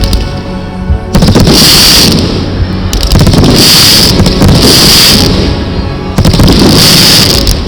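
Fireworks going off in rapid volleys of bangs and crackling: one starting about a second in, another around three seconds in, and a third near the end. They are loud enough to push the recording to its limit.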